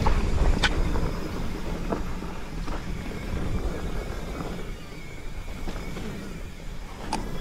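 Mountain bike rolling down a dirt singletrack: steady rumble of wind on the camera microphone and tyre noise, with a few sharp clicks and rattles from the bike over bumps, one less than a second in and one near the end.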